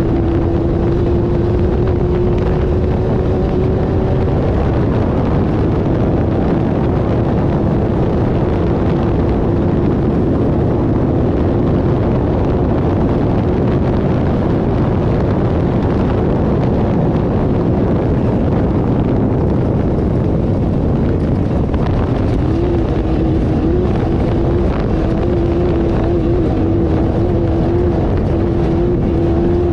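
Off-road race car's engine running hard and steady under a dense rumble of noise; its note starts wobbling up and down in pitch about two-thirds of the way through.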